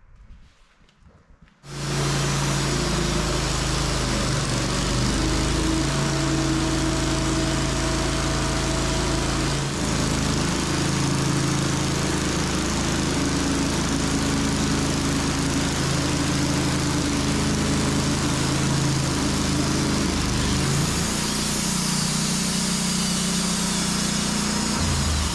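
A portable sawmill's gasoline engine running steadily. It comes in suddenly about two seconds in, and its note shifts about ten seconds in and again near twenty-one seconds.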